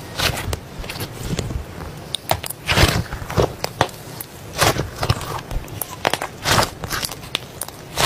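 Slime being squeezed and worked by hand, giving irregular crackles and clicking pops, a few of them louder.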